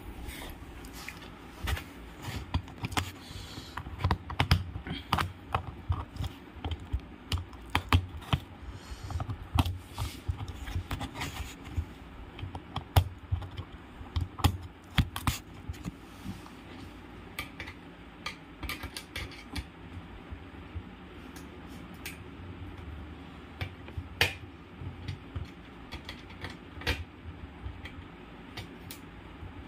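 Irregular small clicks, taps and rattles of a small screwdriver and wire leads being handled while wires are connected at screw terminals. They are busiest in the first half and sparser after that.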